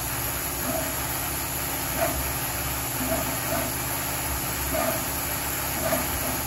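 A 2010 Harley-Davidson CVO 110 cubic inch twin cam engine being turned over by hand, spark plugs out, giving soft irregular clicks about once a second over a steady shop hum. It is being checked after a cam chest rebuild for any sound out of the ordinary.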